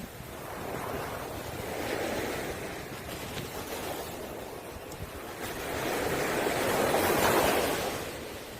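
Sea waves breaking and washing over a pebble beach, in two swells: a smaller one about two seconds in and a louder one near the end.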